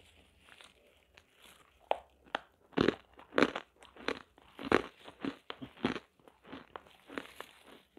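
Crisp roasted nakkumat (edible baked clay) pieces being crunched: a run of sharp, separate crunches that begin about two seconds in, are loudest a little later, and go on more softly.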